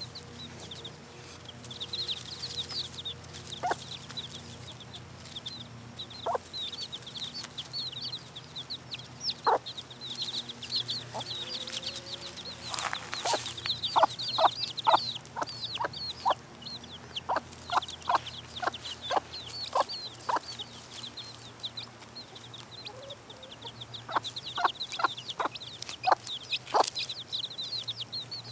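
Chicks peeping almost nonstop in short, high chirps, while a bantam frizzle hen clucks in runs of quick clucks, about three a second.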